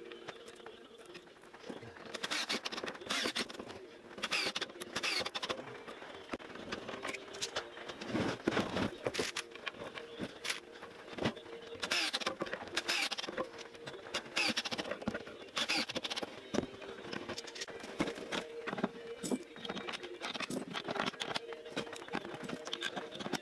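Workshop assembly noises: irregular clicks, knocks and clatter of plywood panels and hardware being handled, with short runs of a cordless drill driving screws, over a steady faint hum.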